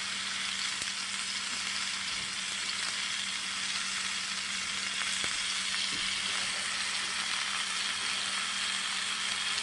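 Chuck roast searing in oil in a hot nonstick braiser, sizzling steadily, with a faint steady low hum underneath.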